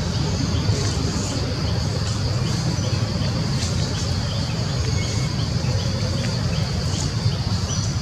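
Forest ambience: scattered short bird chirps over a steady high-pitched hum and a constant low rumble.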